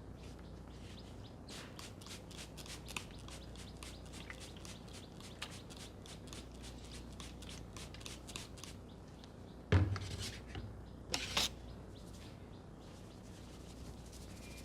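Hand head massage: a run of quick light crackles from fingers working the hair and scalp, then a loud slap about ten seconds in and a quick double slap a second and a half later.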